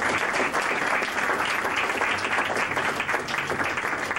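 Audience applauding a speaker as he comes up to the lectern: many hands clapping at once, at an even level throughout.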